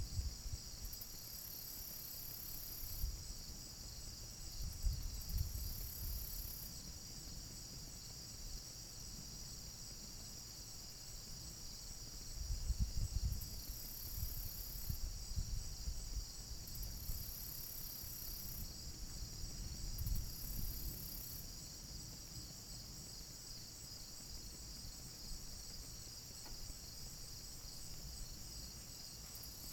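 Crickets chirping steadily in a continuous high trill. Low rumbles come and go under it, the strongest about twelve to fourteen seconds in.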